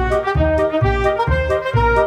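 Upbeat background music with a steady bass beat and brass-like melody notes.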